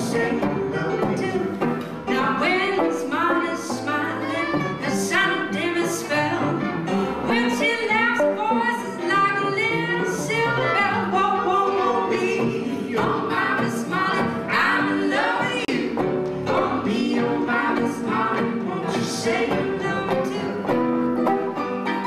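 Live Texas swing band playing, with fiddle carrying the melody over acoustic guitar and electric keyboard.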